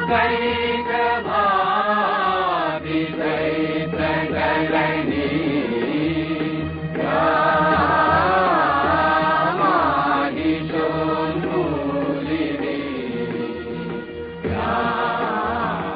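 Devotional hymn chanted to a melody by a voice, in long gliding phrases with short pauses between them, over a steady held drone.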